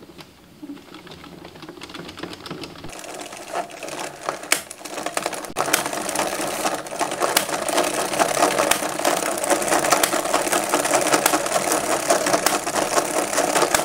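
Addi Express circular knitting machine being hand-cranked, its needles rattling and clicking rapidly as the carriage goes round. The clatter grows louder over the first several seconds, then runs steadily.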